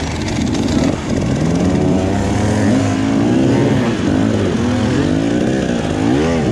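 Enduro motorcycle engine revving up and down under load, its pitch rising and falling several times. The bike is being pushed and ridden up a muddy slope.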